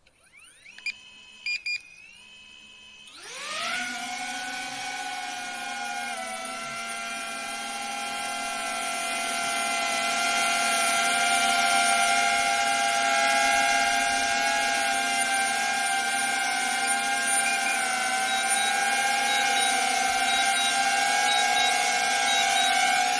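A few short beeps, then a DJI Avata 2 FPV drone's motors spin up about three seconds in with a rising whine. The whine settles into the steady, several-toned sound of its ducted propellers in hover, growing louder about ten seconds in.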